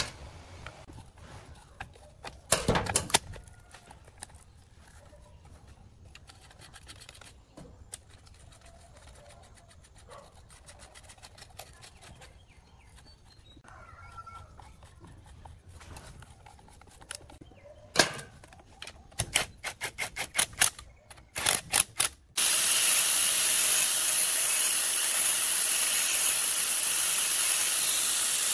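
Metal clicks and clatter of hand tools working on a chainsaw's bar side cover and nuts, in a few short bursts. About 22 seconds in, an electric angle grinder fitted with a sanding disc cuts in abruptly and runs steadily with a loud hiss.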